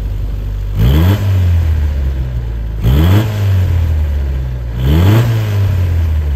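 1957 Triumph TR3's 1,991cc inline-four overhead-valve engine with twin SU carburettors, idling and blipped three times about two seconds apart. Each rev rises quickly and drops back to a steady idle.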